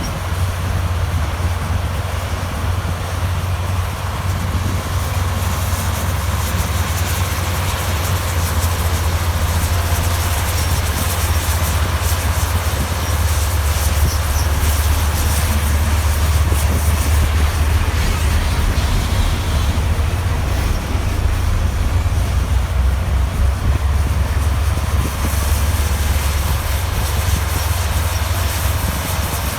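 Heavy diesel construction machinery running: a steady, deep engine drone with machine noise over it, growing slightly louder about a third of the way in.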